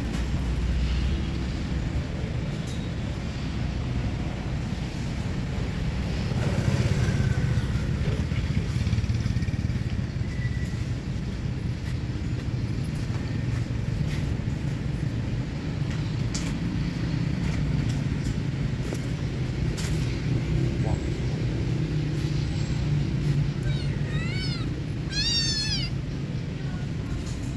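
Cats meowing and yowling over a steady low rumble of traffic, with a quick run of short high-pitched calls near the end.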